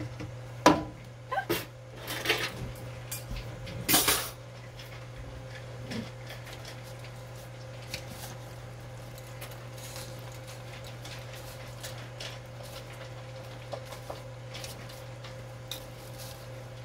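Plastic slotted spoon knocking and scraping against a stainless steel pot while dry angel hair pasta is pushed down into the boiling water: a few sharp clatters in the first four seconds, then only occasional light taps over a steady low hum.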